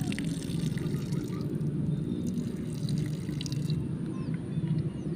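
Water sloshing and dripping, with scattered small splashes and clicks in the first three seconds or so.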